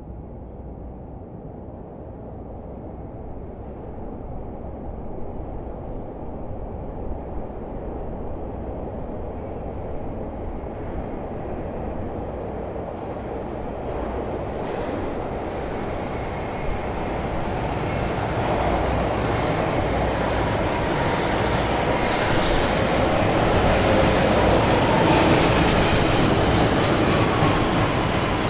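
Underground metro train drawing into the station, its rumble growing steadily louder. High whining tones from the wheels and motors join it in the last third.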